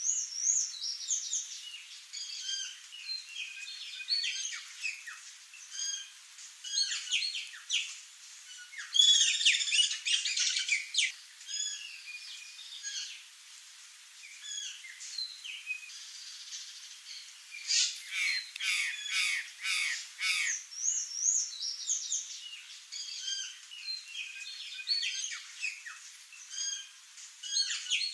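Curl-crested jays calling: a dense, continuous run of short chirps and harsh squawks, with louder bursts of squawking about nine seconds in and again near eighteen seconds.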